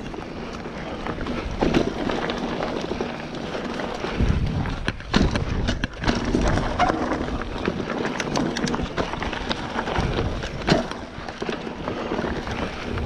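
Mountain bike ridden down a dirt trail, heard from a bike-mounted action camera: tyres on dirt and a steady rattle of the bike, with sharp knocks over bumps and bursts of low wind rumble on the microphone.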